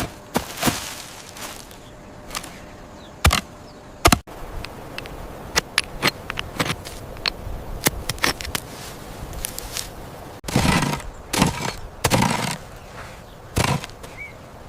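Irregular sharp cracks and knocks, with a few longer, rougher noisy bursts in the last third.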